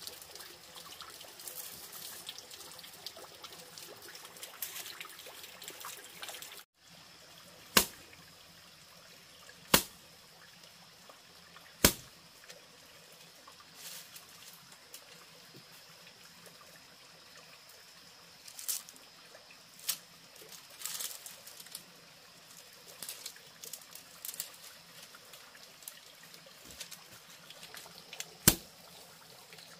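Water trickling steadily, broken by sharp knocks: three loud ones about two seconds apart starting about eight seconds in, a few softer clicks in the middle, and another loud knock near the end.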